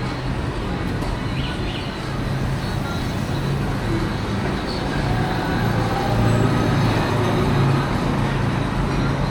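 Road traffic noise: a steady low engine hum over a wash of road noise, a little louder in the second half.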